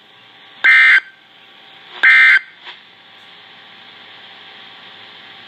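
Emergency Alert System SAME digital data bursts from a weather radio broadcast: two short bursts of warbling data tone, each under half a second and about a second and a half apart. These are the last two of the three end-of-message codes that close the alert. A faint steady hiss of radio static follows.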